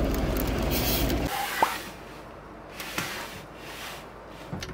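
Outdoor street noise with a steady low rumble and a plastic carrier bag rustling. It cuts off abruptly about a second in to quiet room tone with a couple of small clicks.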